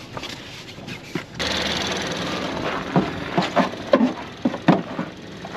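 A car door opens about a second in, letting in the steady sound of idling diesel trucks. Then come irregular footsteps crunching on frozen, snowy ground.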